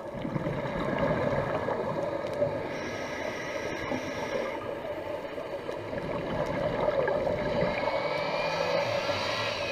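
A boat engine droning, heard underwater through the camera housing, with a whine that rises in pitch near the end.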